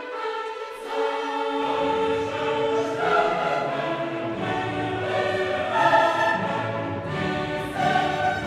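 Background music with a choir singing sustained chords; lower instruments come in about a second and a half in.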